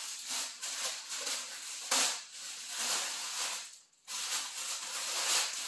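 Packaging rustling and crackling with sharp clicks as a new Yorkville MS-206 tripod boom stand is unpacked and handled. A loud crackle about two seconds in, and a short break just before four seconds.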